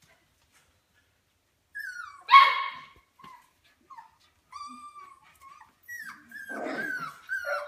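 Four-week-old Golden Mountain Doodle puppies whining and yelping: a loud high yelp about two seconds in, then a run of short high whines that fall in pitch, with a rougher cry near the end.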